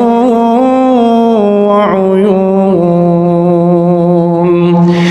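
A male Qur'an reciter chanting in slow, melodic tajweed, holding long drawn-out notes that bend and waver in pitch. A quick breath is drawn near the end before the next phrase.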